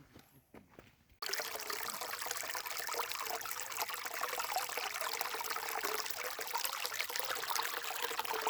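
Running water: a stream trickling and burbling, starting abruptly about a second in and then steady.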